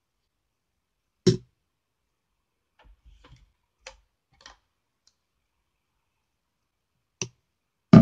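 A few scattered clicks and knocks from a craft knife and a paper stencil being handled on a cutting mat. The loudest knock comes about a second in, with fainter ticks in the middle and again near the end, and dead quiet between them.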